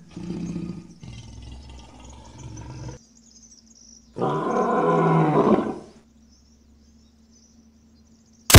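Male lion roaring: one loud, deep call lasting about a second and a half, a few seconds in, after a quieter low rumble. A sudden loud bang comes at the very end.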